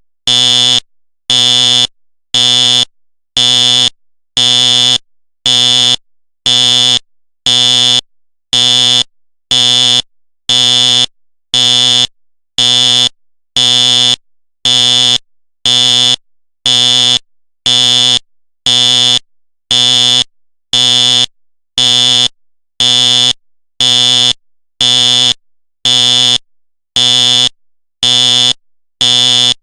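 Simplex fire alarm horn sounding in code pulse: an even train of loud honks about once a second, each about half a second long with gaps of silence between them.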